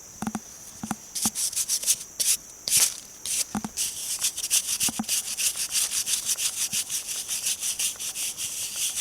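Rapid rubbing strokes across a rough fieldstone grave marker, about four to five a second, as its surface is scrubbed to look for carved writing. A few soft knocks come in the first second.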